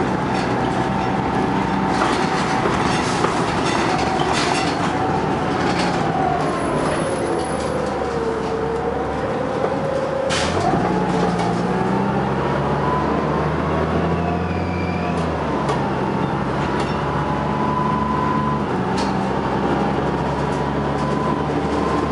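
A 1997 Neoplan AN440 CNG transit bus under way, heard from inside the cabin: the engine and driveline run with a whine that drops in pitch midway and then climbs again as the bus slows and picks up speed. Road noise runs underneath, with scattered rattles and knocks from the body and fittings.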